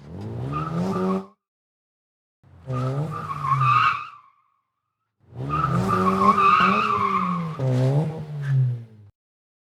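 Car engine revving with tires squealing, in three bursts separated by dead silence; the last burst is the longest.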